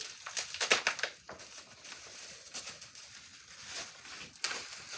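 Packaging wrap crinkling and rustling as it is unwrapped by hand, in irregular bursts, busiest in the first second or so and again near the end.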